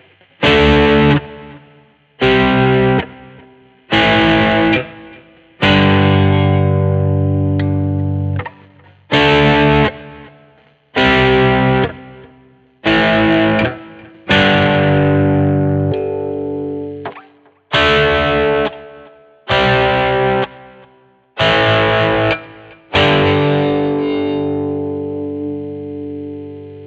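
1982 Vantage VE-550 electric guitar strumming chords, about a dozen separate strums roughly every second and a half, each left to ring and fade. The last chord rings out longer near the end.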